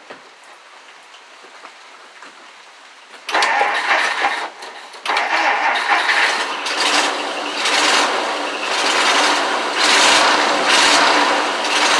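1949 Plymouth Special Deluxe's flathead straight-six cranked by the starter about three seconds in, catching about two seconds later and running unevenly with irregular surges. It is still misfiring on cylinders 3 and 4, running on only four cylinders even with new spark plugs fitted.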